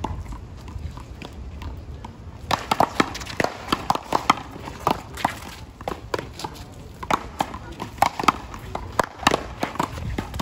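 Paddleball rally: a rubber ball struck back and forth with solid paddles and bouncing off a concrete wall, as a quick irregular run of sharp hits that starts about two and a half seconds in.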